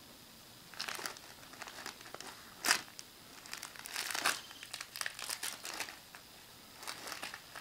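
Bubble wrap crinkling as a baby grabs and crumples it, in irregular bursts, with one sharp, loud crackle a little before the middle and the busiest crinkling in the second half.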